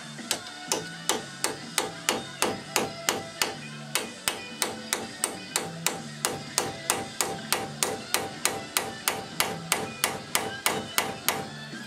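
Hammer pounding the old wheel hub-bearing assembly out of a 1999 Chevy S10 Blazer's steering knuckle: a long run of sharp metal strikes, about three a second, each ringing briefly, stopping near the end. Background music plays faintly underneath.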